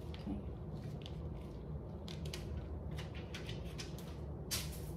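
Soft crackles and rustles of hands working slices of prosciutto free from their plastic packaging, with a brief louder rustle near the end, over a steady low hum.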